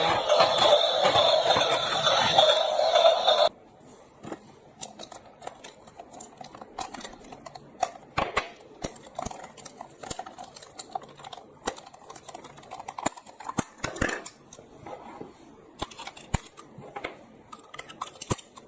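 Background music that cuts off suddenly about three seconds in. It is followed by scattered light clicks and knocks of toy vehicles being handled.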